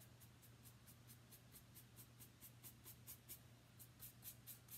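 Faint scratching of a nearly dry stencil brush being scrubbed over the edge of a painted sign board in quick, regular strokes, over a low steady hum.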